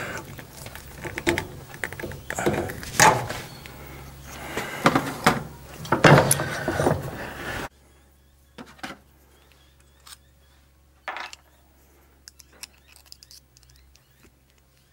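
Steel test strips and pliers clanking, creaking and scraping in a bench vise as a spot weld is twisted and peeled apart in a destructive peel test. The noise stops abruptly about eight seconds in, leaving only a few light clicks of the metal being handled.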